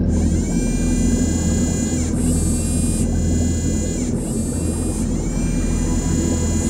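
Sound-effect whine of an ROV's manipulator arms moving: a pitched mechanical whine that rises and then holds, with a hiss over it, starting again about every two seconds over a steady low underwater rumble.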